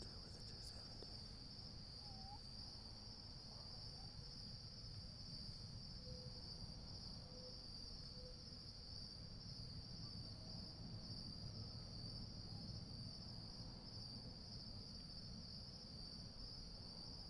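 Steady, high-pitched insect chorus that keeps up without a break, over a low, even rumble, with three faint short notes about six to eight seconds in.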